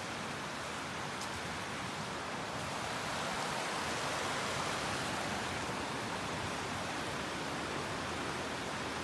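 Rocky brook rushing and splashing over boulders in small cascades, a steady even rush that grows a little louder a few seconds in.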